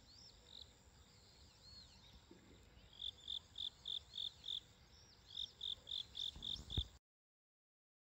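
Crickets chirping: two runs of short, evenly spaced chirps, about four a second, over faint higher chirps. A short knock comes just before the sound cuts off.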